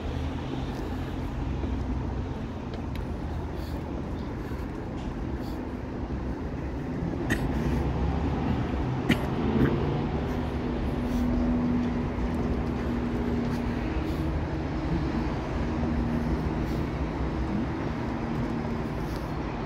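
Steady road traffic rumble, with a vehicle engine humming from about halfway through, and a few sharp clicks.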